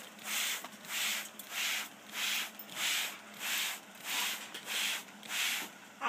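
Hand trigger spray bottle squeezed over and over, about twice a second, each squeeze a short hiss of water mist.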